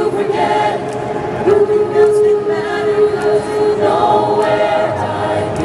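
A cappella high school choir singing into handheld microphones, several voices holding long chords together.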